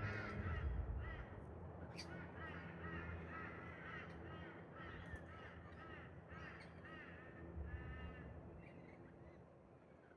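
Birds calling: a run of short, harsh, repeated calls, several a second, over faint background noise. A low rumble fades out in the first second or so.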